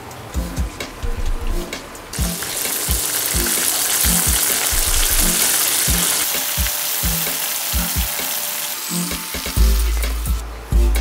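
Breaded chicken breast strips deep-frying in plenty of hot oil, a steady sizzle that jumps up sharply about two seconds in and eases off near the end. Background music with a beat plays underneath.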